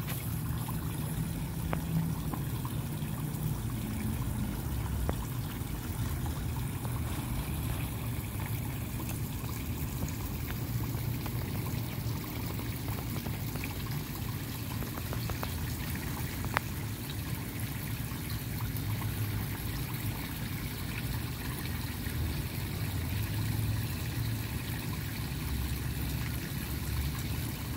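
Water pouring steadily from an old hand-pump spout into a galvanized pail and spilling over the rim of a tipped galvanized tub onto rocks, a continuous splashing trickle into a garden pond.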